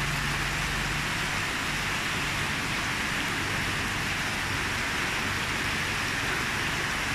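Steady hiss of falling, splashing water, like a pond inflow or rain on the roof, with no breaks. A low steady hum underneath stops about a second in.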